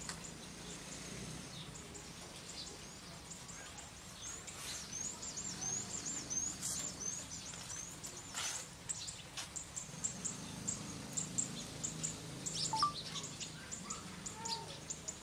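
Many small birds chirping in quick, high-pitched calls and short falling whistles over a steady hiss of light rain.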